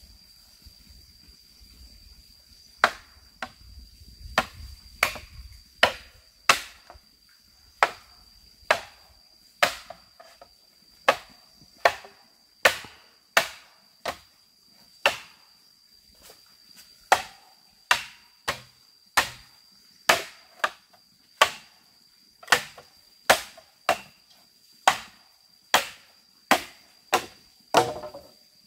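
Wood being chopped with a blade: a steady run of sharp chopping blows, about three every two seconds, starting a few seconds in. A thin, steady high tone sounds underneath.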